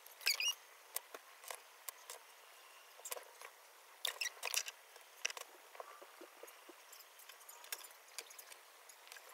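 Small clicks and taps of nail-supply containers and tools being handled at a table, scattered through, with a quick run of them about four seconds in.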